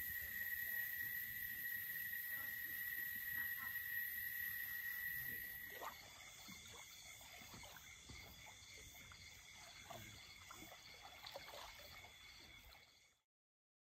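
Faint, steady high-pitched chorus of calling wild animals such as frogs or insects. About six seconds in the mix changes to two high tones with a repeating pulse above them, and the sound cuts off suddenly near the end.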